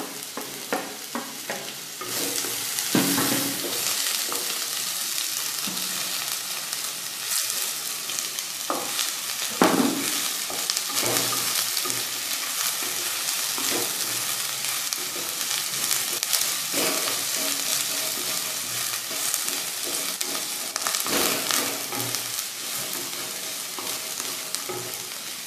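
Sliced vegetables stir-frying in hot oil in a nonstick kadai: a steady sizzle that jumps up sharply about two seconds in as the vegetables hit the oil, with a spatula scraping and tossing them in repeated strokes.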